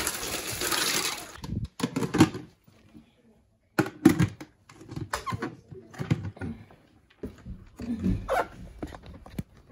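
Ice rattling out of a bag into a bucket of brine for about the first second, then a string of knocks and thumps as plastic lids are pressed down and snapped onto orange Home Depot five-gallon buckets.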